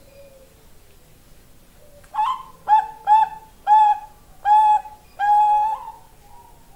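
Bangkok-strain zebra dove (perkutut) singing its cooing song: about six clear coos at one pitch, spaced unevenly, the last held longest, then trailing off into a few softer notes near the end.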